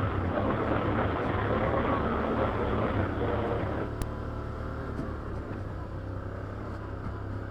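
ATV engine running steadily while riding a trail; it gets quieter about four seconds in, as if the throttle eases off.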